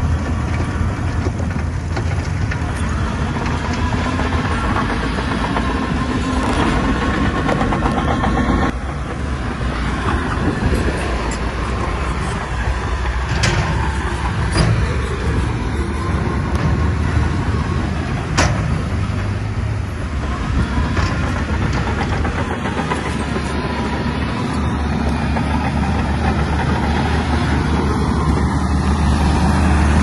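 Heavy earthmoving machine's diesel engine running steadily under load, with a few sharp knocks in the middle.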